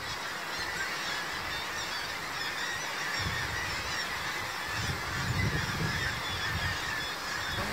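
Dense, continuous clamour of many seabirds calling at once at a breeding colony, with a low rumble underneath from about three seconds in.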